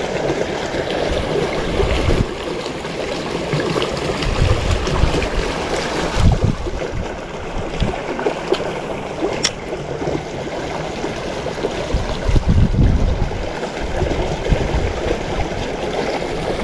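Steady rushing of a fast-flowing river current, an even wash of water noise with a few deeper surges and one sharp click near the middle.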